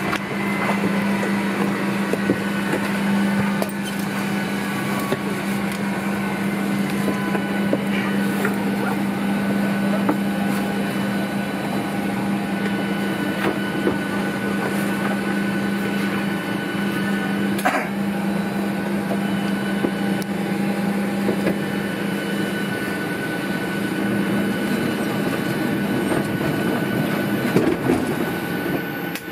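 Built-in airstair of a Boeing 737 extending from the forward door: a steady electric motor hum that runs while the stairs go down and stops shortly before the end. One sharp click is heard about two-thirds of the way through.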